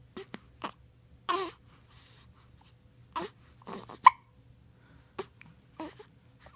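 Three-week-old baby hiccuping over and over at uneven intervals, about nine short hiccups. A few carry a brief squeak of voice, and the sharpest comes about four seconds in.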